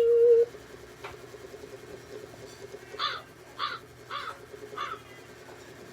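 Crow cawing four times, evenly spaced about half a second apart. Before that, a loud steady tone cuts off about half a second in.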